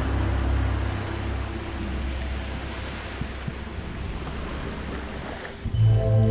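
A steady rushing noise, like surf or wind, between stretches of ambient music. A low held drone fades out in the first second, and new music with held tones comes in suddenly near the end.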